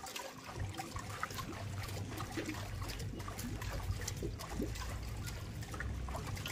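Water trickling and dripping in irregular small splashes as it runs from a T-shaped plastic pipe full of holes into steel bowls and back into buckets, over a low steady rumble.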